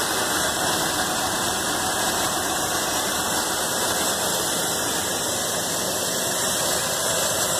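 Old dump truck's carbureted gasoline engine idling steadily with the hood open. The owner hears a squeak from a leak in the exhaust and knows of a vacuum leak at the back of the engine.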